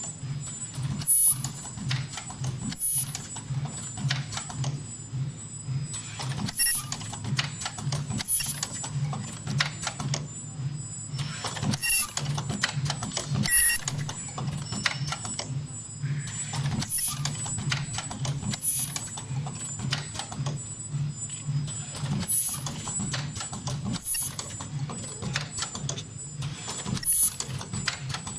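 Ultrasonic mask ear-loop spot welding machine running: a steady, evenly pulsing low hum with frequent sharp mechanical clicks and short high-pitched tones recurring every second or so.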